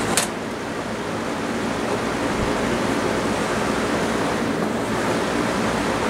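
Lasko 3723C 20-inch box fan with D-blade set: its rotary speed switch clicks as it is turned up to the second speed, then a steady rush of air with a low motor hum, building over the first two seconds as the blades speed up. Quite reasonably quiet for the air it moves.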